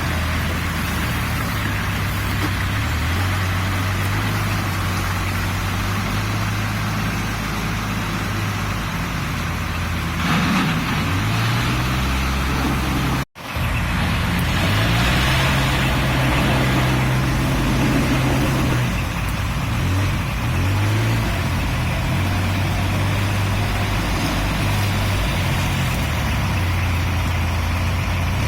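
Case N-series backhoe loader's diesel engine running, its pitch rising and falling as the machine works. The sound cuts out for an instant about 13 seconds in.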